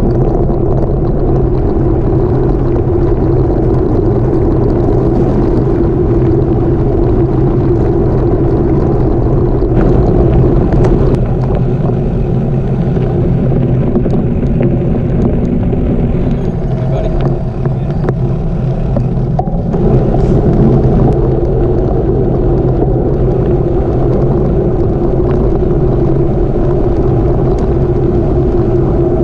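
Wind buffeting the microphone and bicycle tyres rolling over gravel during a gravel-road ride: a loud, steady rumble that dips briefly just past the middle.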